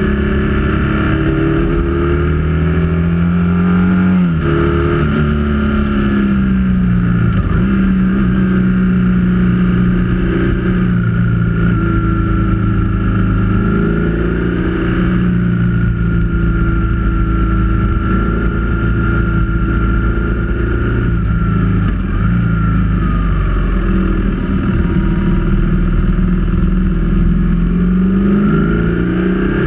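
Motorcycle engine running under way on the road, its pitch climbing and dipping with throttle and gear changes. It eases off about three quarters of the way through and picks up again near the end.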